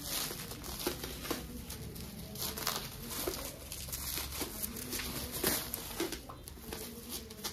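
Bubble-wrap packaging around a book crinkling and rustling as it is handled and unwrapped, in irregular crackles.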